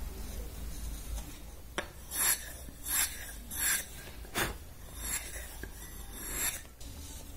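Hand blade shaving Swiss stone pine while rough-shaping a carved model fuselage: a single click about two seconds in, then about seven quick scraping strokes, each a short rasp, roughly one every three quarters of a second.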